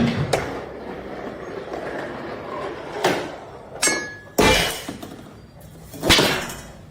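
A series of knocks and clatters, about five in all, one of them about four seconds in followed by a brief glassy ring.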